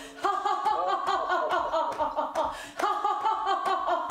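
People laughing in quick, rhythmic ha-ha-ha bursts, the deliberate laughter of a laughter-yoga exercise. The laughter breaks off briefly just after the start and again near three seconds in.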